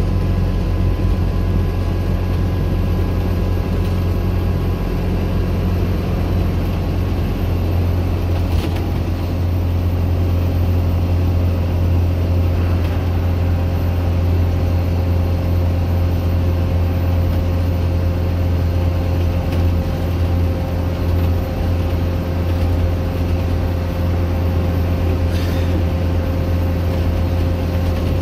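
Euro 3 Cummins diesel engine of a Dennis Dart SLF single-deck bus running steadily, a constant deep drone at an even pitch, heard from inside the passenger saloon.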